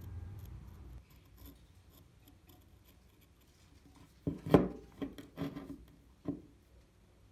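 A low hum that stops about a second in, then after a pause a few sharp clicks and clatters of small hard parts being handled, the loudest about four and a half seconds in.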